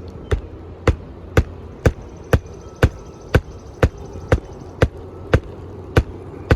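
Hammer driving 1.25 inch roofing nails into an asphalt shingle: sharp, evenly spaced strikes about two a second.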